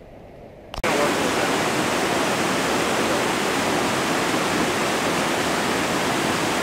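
Rushing whitewater of the Merced River below Vernal Fall: a loud, steady rush of water that starts abruptly just under a second in, after a faint quiet start.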